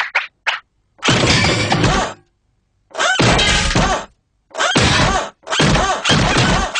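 Cartoon slapstick sound effects: a string of loud crashing and smashing bursts, each about a second long, broken by short silences.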